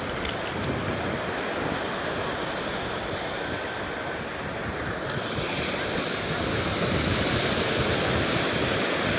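Sea surf washing onto a beach, a steady rush that grows a little louder about halfway through, with wind on the microphone.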